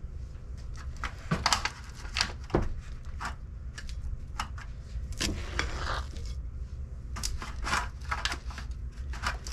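Batter being spooned from a mixing bowl into thin disposable aluminium foil pans: irregular crinkling of the foil and scrapes and clicks of the spoon.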